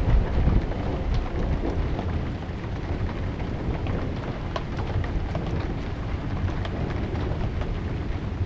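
Thunderstorm: a low rumble of thunder, loudest in the first half second, over a steady hiss of rain with scattered drop ticks.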